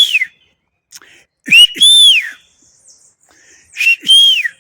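Three loud whistles, each a clear note that rises and then falls, spaced about two seconds apart.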